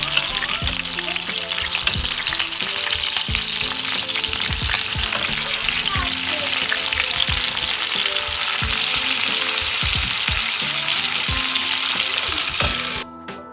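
Chicken pieces sizzling loudly as they fry in fat in a stainless steel pot, with knocks and scrapes of a slotted metal utensil turning them. The sizzling cuts off suddenly near the end.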